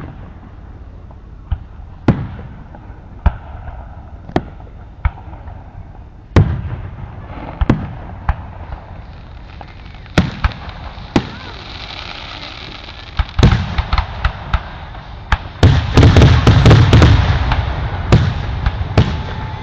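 Fireworks going off: sharp bangs a second or two apart, coming faster after about 13 seconds and running into a dense barrage of rapid bangs about 16 seconds in.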